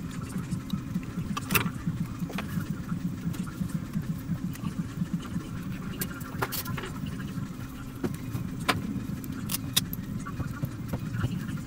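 Scattered small clicks and taps of tools being handled during hands-on electronics repair work, over a steady low hum.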